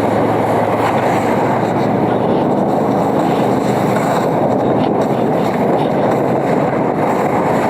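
Snowmobile engine running steadily under way: a constant low hum under loud, even rushing noise.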